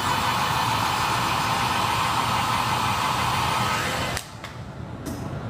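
Hot air gun blowing steadily to heat the adhesive under an iPhone's barometer cover plate, then cut off suddenly about four seconds in.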